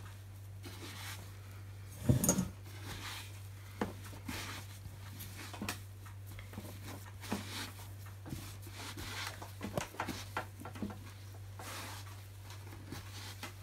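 Hands kneading soft brown bread dough on a wooden chopping board: irregular soft pats and squishes, with one louder thump about two seconds in, over a steady low hum.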